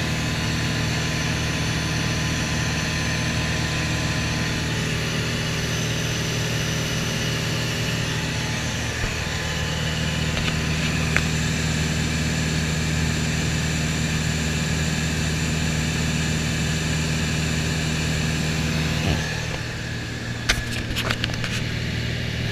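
Light single-engine propeller plane heard from inside the cabin: the piston engine and propeller drone steadily in cruise. Its tone changes slightly about nine seconds in, and a few sharp clicks come near the end.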